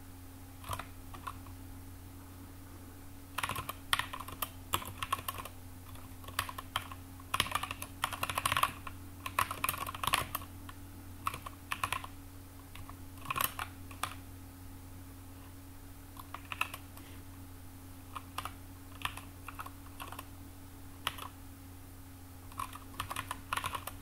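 Typing on a computer keyboard: irregular bursts of rapid keystrokes with short pauses between them, over a steady low hum.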